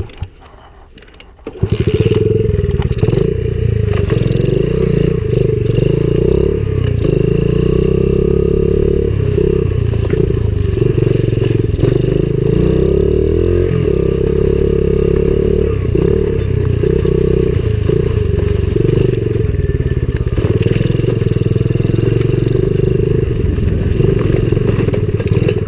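Single-cylinder four-stroke engine of a Coolster 70cc pit bike. After a quiet second and a half it comes in loud and runs steadily as the bike is ridden along the trail.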